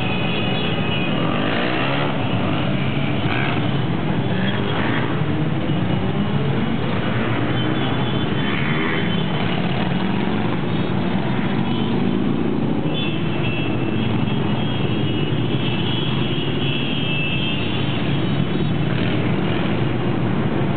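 Many motorcycles riding past in a slow procession, their engines mixing into one continuous din. Engine notes rise and fall in pitch as the bikes go by.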